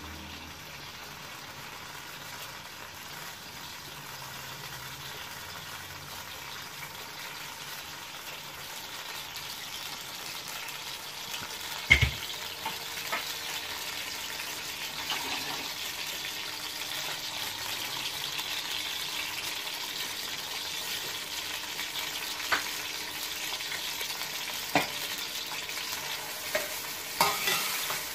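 Sliced onions sizzling in hot oil in an aluminium karahi, a steady hiss that slowly grows louder. A metal spatula knocks and scrapes against the pan now and then, the sharpest knock about twelve seconds in.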